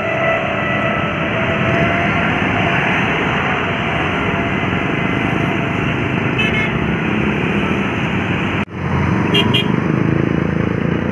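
Steady roadside traffic noise from passing buses, cars and motorcycles, with a few voices mixed in. The sound drops out abruptly for an instant about two-thirds of the way through, then resumes.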